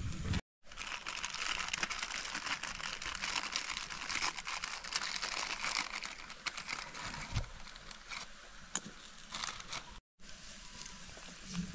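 Plastic instant-noodle packet crinkling as it is handled and opened, with two brief dropouts.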